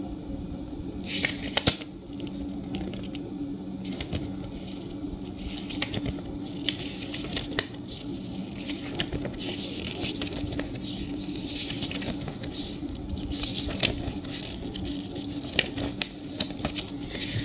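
Paper rustling and flicking as the pages of a small stapled paper booklet are handled and turned, in irregular crisp bursts with small clicks. A steady low hum runs underneath.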